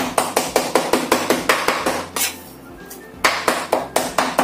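Kitchen knife chopping raw chicken on a bamboo cutting board to mince it, in fast, even strokes about five a second. The chopping stops for about a second near the middle, then picks up again.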